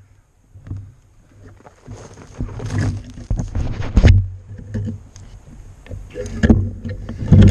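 Footsteps and brush scraping and rustling against clothing as someone pushes through thick undergrowth. It is quiet for the first couple of seconds, then turns into irregular loud rustles with a few sharp knocks.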